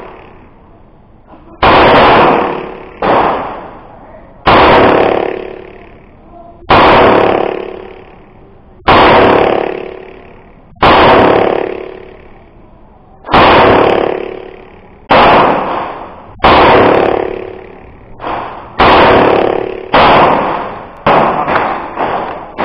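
A Canik 9mm pistol fired shot after shot, about one every one and a half to two seconds, each crack followed by a long echo that dies away over about a second. Near the end the shots come faster, several in quick succession.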